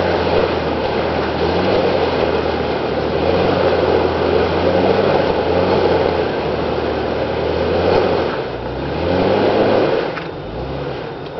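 A vehicle engine running under load, its revs rising and falling several times, with the largest rise around eight to nine seconds in; the engine drops quieter about ten seconds in.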